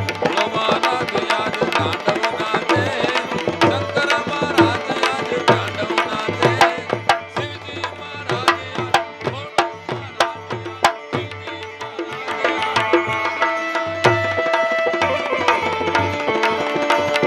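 Instrumental devotional folk music: tabla playing a brisk, steady rhythm under a melody instrument, the melody settling into held notes in the last few seconds.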